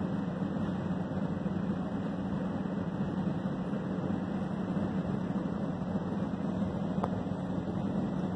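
Steady low mechanical drone with a constant low hum, from airport apron machinery, with one faint click about seven seconds in.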